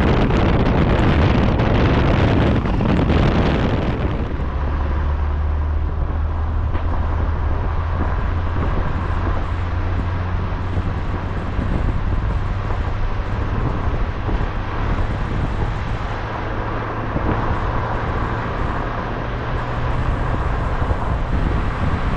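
Car engine running steadily with a low, even hum. Wind buffets the microphone for the first few seconds.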